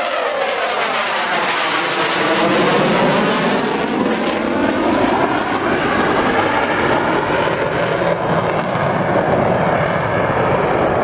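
Military display jet flying past, its loud engine noise sweeping in pitch as it passes and then going on steadily.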